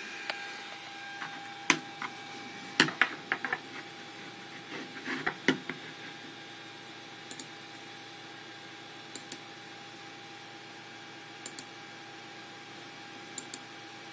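A steady fan hum with a faint whine, under a few knocks and clicks in the first six seconds. After that come sharp double clicks about every two seconds, typical of a computer pointer button being clicked on the laptop controlling the printer while the hotend heats up.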